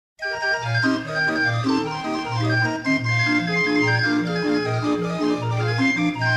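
Barrel organ starting a new tune just after a brief silence: a steady-pitched melody over bass notes beating at an even pace, as played for the Binche carnival.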